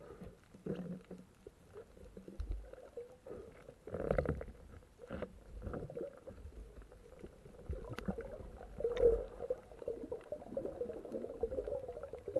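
Muffled underwater noise as a spearfisher swims with fins: water gurgling and sloshing in uneven swells, with a few sharp clicks.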